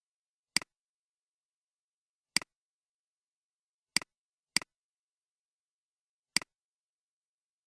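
Five sharp computer mouse clicks, each a quick click-and-release, spaced irregularly with two of them about half a second apart near the middle, against dead silence.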